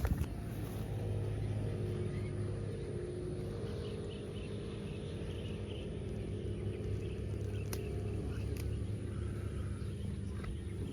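A steady low engine hum, with a slight shift in pitch a few seconds in, and faint bird chirps above it.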